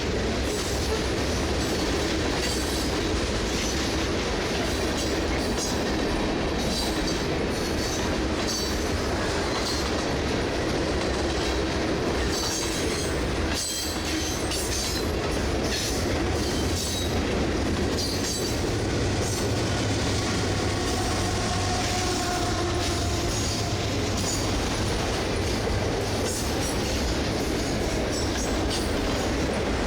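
Long freight train rolling past close by: a steady rumble of wheels, with clacking as the cars cross rail joints. About halfway through, a GE CM44AC diesel locomotive running as a mid-train helper passes, and its engine thickens the low rumble. A faint squeal is heard briefly about two-thirds of the way in.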